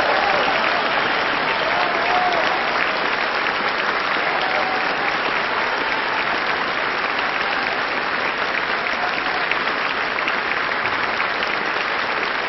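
Audience applause after an opera aria: a dense, steady roll of many hands clapping, keeping up at an even level throughout.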